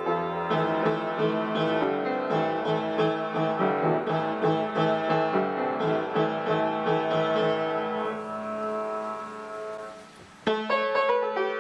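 Piano playing a melody with chords, note by note. It fades to a faint hiss about eight seconds in, and a new tune starts suddenly about ten and a half seconds in.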